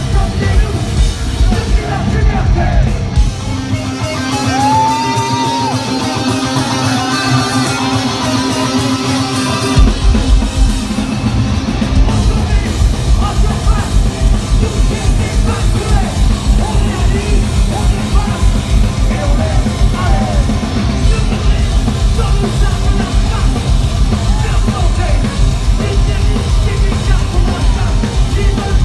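A live metal band played through a loud PA: distorted electric guitars and a drum kit. About 4 s in, the low end and kick drum drop out for a quieter break, and about 10 s in the full band comes back in with hard, driving drums.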